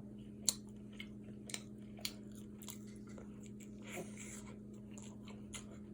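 Faint chewing of a syrup-soaked pancake: scattered soft, wet mouth clicks and smacks over a steady low hum.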